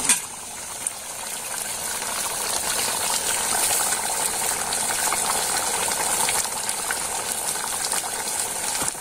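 Pot of meat and corn stew boiling hard over an open wood fire: a steady bubbling hiss scattered with small crackles, with a couple of sharper clicks in the first second.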